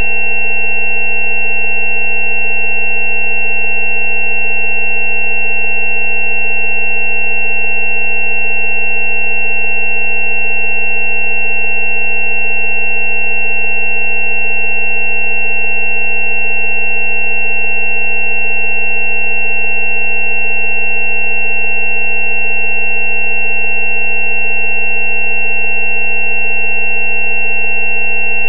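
Synthesized 190 Hz 'healing frequency' tone, presented as a treatment for dental abscesses. A low steady hum is layered with several higher steady tones, the loudest a high, thin whine, and all of it holds unchanged with no rhythm or breaks.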